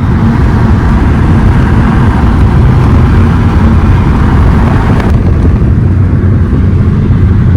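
Loud steady traffic noise heard from inside a moving car: a nearby vehicle's engine running alongside, over tyre and road noise.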